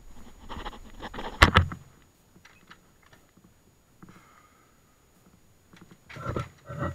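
Handling noise on a small action camera: fingers rubbing and tapping on the casing, with one sharp knock about a second and a half in and a few more brief knocks and rustles near the end.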